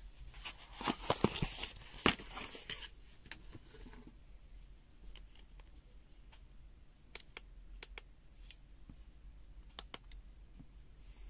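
Faint handling noise from a Uni-T UT123D multimeter and its test leads: a quick run of clicks and rubbing about a second in, then a few single sharp clicks spaced out over the rest.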